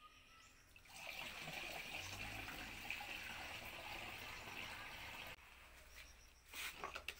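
Water poured from a bucket into the plastic tank of a Kyone KY-1000 16-litre knapsack sprayer, a steady splashing fill lasting about four seconds that stops sharply. A few short knocks follow near the end.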